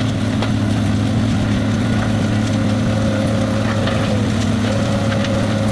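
Large wood chipper's diesel engine running steadily at a constant pitch, with a faint steady whine above the engine note.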